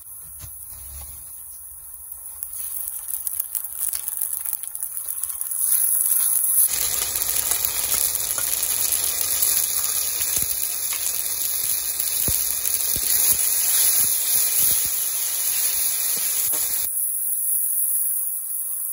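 Sliced onions frying in hot oil in a wok, a soft sizzle that builds; about seven seconds in, wet spice paste goes into the oil and the sizzling turns suddenly loud, with a metal spatula scraping and clicking against the pan, then drops back near the end.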